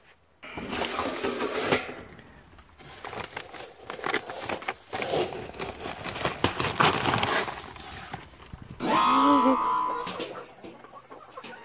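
A woven plastic feed bag crinkling and rustling as a plastic cup scoops through loose sunflower seeds, the seeds rattling and pouring. About nine seconds in, a hen gives a drawn-out, wavering call.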